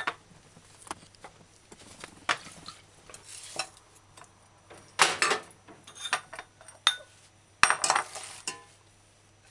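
Scattered knocks and clinks of kitchenware being handled on a countertop: a stainless steel pot and a bowl being moved and set down, with the loudest strikes about five seconds in and again near eight seconds.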